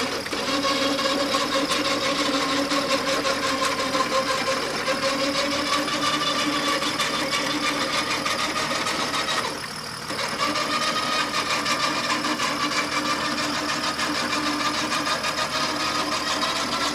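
Electric winch on a bogged 4x4's front bumper pulling in its cable under load to haul the vehicle out of deep mud: a steady motor whine that stops briefly about ten seconds in, then starts again slightly higher.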